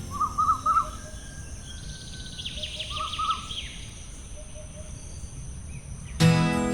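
Small birds chirping in a few short bursts, with a quick falling trill partway through, over a steady background hiss. Strummed guitar music comes in near the end.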